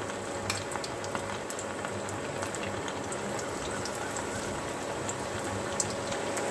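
Chicken kababs deep-frying in hot oil in a steel pot: a steady sizzling, bubbling hiss with scattered small pops and crackles.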